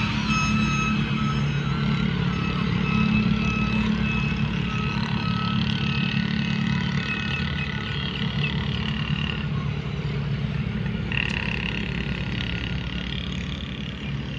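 A motor vehicle's engine running steadily: a low rumble with a thin, high whine over it.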